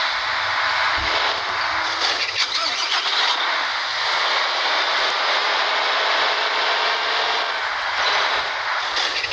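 Steady road-vehicle noise: engines and tyres running by, with no horn sounding.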